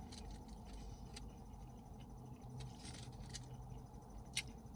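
Quiet eating of a taco close to the microphone: scattered soft, wet mouth clicks from chewing, the sharpest near the end, over a faint steady low hum.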